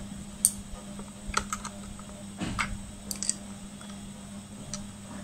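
Light plastic clicks and a short scrape from fingers pressing and sliding the battery cover on the back of a Sanwa CD800a digital multimeter to work it open. The clicks come singly and in small clusters, a few seconds apart.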